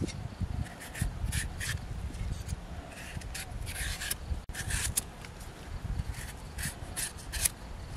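A large knife blade shaving the skin off a daikon radish: short, uneven scraping strokes, about one or two a second.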